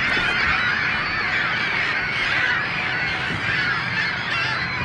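A large flock of birds calling without a break, many overlapping calls at once.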